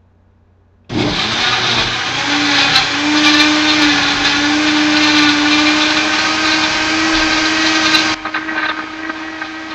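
Blender switched on about a second in, running hard as it blends a shake of banana, frozen fruit and liquid, its motor holding a steady tone. Just after eight seconds the sound drops to a quieter, steady run.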